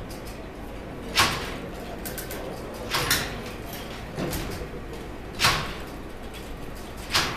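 Hand-cranked Babbage Difference Engine No. 2 running, its metal mechanism giving a loud clack about every one and a half to two seconds, about five in all, one of them doubled, as it steps through its add and reset phases.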